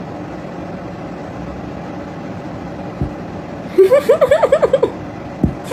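A cat chattering: a rapid stutter of about ten short calls, each rising and falling in pitch, lasting about a second a little before the end. Under it runs a steady background noise, with a couple of soft low thumps.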